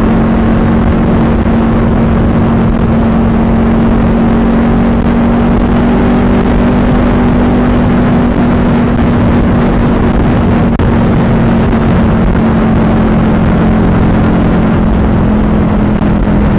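Motorcycle engine running at a steady pitch while riding, over a dense rushing noise.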